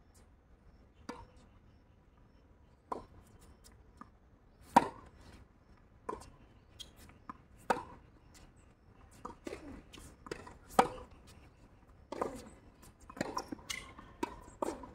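Tennis ball struck by rackets and bouncing on a hard court during a rally: sharp pops every second or two, the loudest about 5, 8 and 11 seconds in, with quicker, fainter knocks and shoe scuffs near the end.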